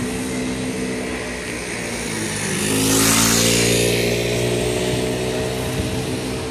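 A motor vehicle passing close by: a steady engine hum with a rush of tyre and air noise that swells to its loudest about three seconds in and then eases off.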